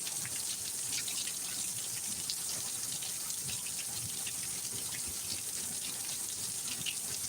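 Rain falling and running off in a thunderstorm downpour: a steady hiss of water with scattered drips and splashes.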